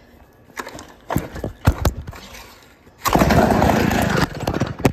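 A 1956 David Bradley two-stroke chainsaw being pull-started: a few knocks and rattles, then about three seconds in the engine catches and runs loud and fast for about a second before cutting out, with a clatter just after.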